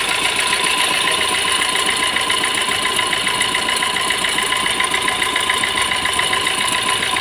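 Fiat Punto diesel engine idling with a fast, even rattling chirp ('kir kir kir') from the timing-belt side. The mechanic traces the noise to a worn water pump that is also leaking coolant.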